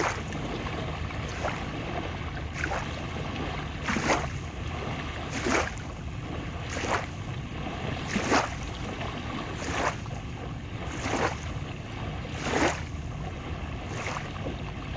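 Small, fast waves lapping onto a sandy beach, each one a short splash about every second and a half, over a steady low rumble.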